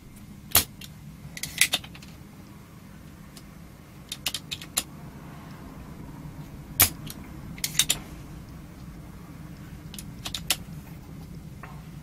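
Spring-loaded desoldering pump (solder sucker) being cocked and fired again and again on a circuit-board joint to clear the solder from a capacitor lead. It gives sharp snaps and clicks in clusters every two to three seconds, the loudest single snaps about a second in and near the middle.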